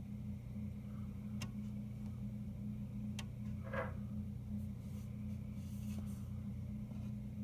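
Steady low hum, with two faint sharp clicks about one and a half and three seconds in and a brief higher-pitched blip just after the second.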